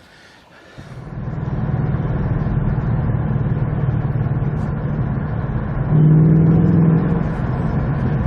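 An engine running steadily, starting after a quiet first second, with a swell in loudness for about a second around six seconds in.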